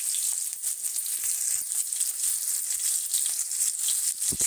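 Chopped onion frying in hot oil in a kadhai: a steady crackling sizzle with fine spitting ticks. A couple of dull knocks come near the end.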